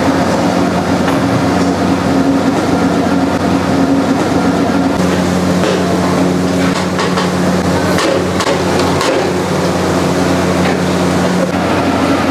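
Steady low machine hum with a rushing noise, and scattered clinks and knocks between about five and nine seconds in.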